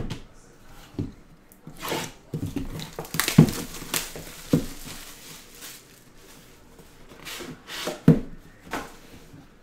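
Plastic shrink-wrap crinkling and tearing as it is stripped off a trading card hobby box, with several sharp knocks as the box is handled on the table.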